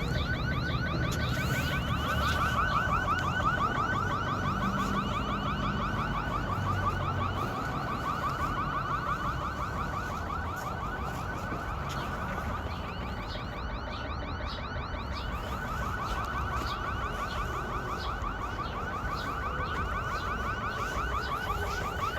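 Electronic alarm siren sounding continuously with a fast, rapidly repeating warble.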